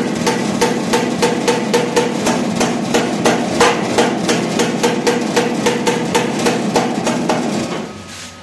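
Ball-peen hammer tapping rapidly on a steel gate fitting, about four strikes a second, with the metal ringing under the blows. The tapping stops near the end.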